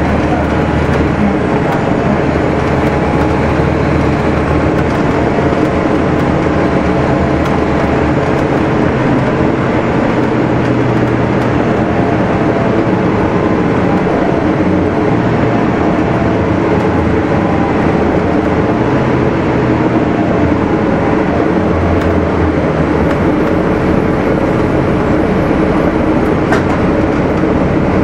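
Cummins ISL diesel engine of a Gillig Phantom transit bus running, with a steady drone whose pitch shifts a few times.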